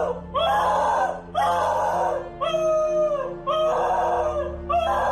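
Cocker spaniel howling from separation anxiety: five loud, scream-like cries, about one a second, most falling in pitch at the end.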